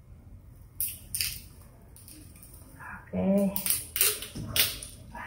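Plastic bottle of orange soda being twisted open: short hisses of escaping carbonation and cap clicks, several in a cluster near the end, with a brief vocal sound about three seconds in.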